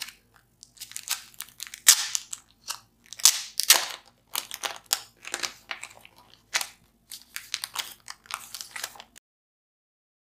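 Clear plastic sleeve crinkling and crackling in the hands as photo cards are pulled out of it, in irregular handling bursts that stop abruptly about nine seconds in.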